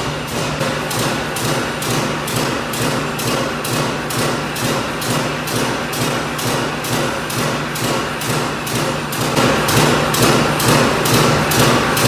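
Mechanical power press stamping steel strip fed from a coil, with rhythmic impacts about two a second over a steady machine hum. It gets louder about nine seconds in.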